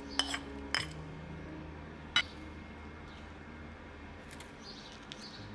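A spoon tapping against a stoneware bowl as chopped chilis are added: a few quick clinks in the first second and one sharper clink about two seconds in, over soft background music.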